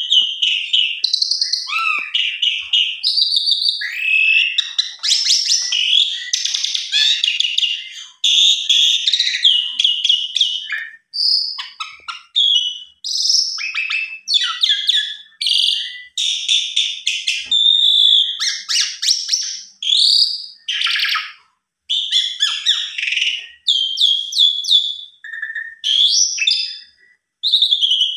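Javan pied starling (jalak suren) singing a long, varied song of whistles, chirps and fast rattling phrases, with mimicked phrases (isian) from its repertoire, broken only by short pauses.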